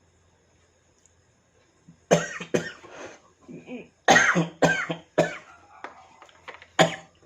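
A man coughing hard several times, beginning about two seconds in, in a few bursts with throat clearing between them.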